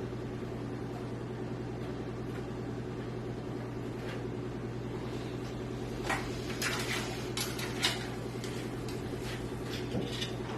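A steady low electrical hum, with scattered light clicks and rustles from about six seconds in: hands handling cables and parts inside a PC case.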